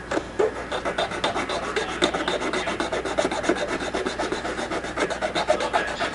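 A plastic part of a 1/64 scale model car being filed down with rapid back-and-forth strokes, several a second. The plastic is being taken down so that replacement wheels will fit.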